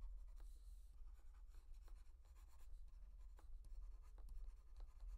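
Faint scratching and light taps of a pen stylus drawing on a graphics tablet, over a steady low hum.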